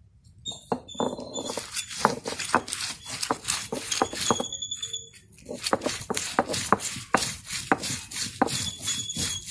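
Cylindrical stone roller of an ammi grinding stone crushing dried red chillies with rock salt and tamarind: a fast run of gritty crunches and scrapes, stone on stone.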